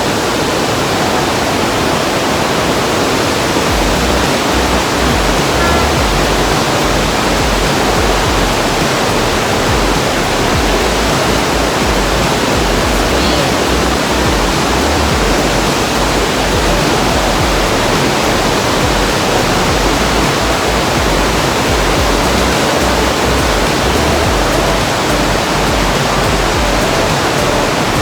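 A waterfall's loud, steady rush of falling water, with a low rumble underneath from about four seconds in.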